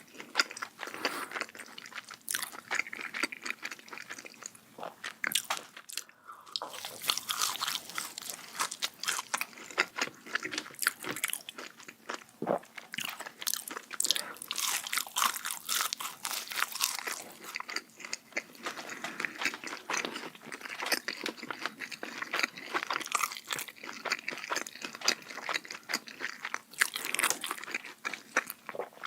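Close-miked eating of a burger: crunchy bites and chewing, crackling clicks coming thick and irregular, with a short pause about six seconds in.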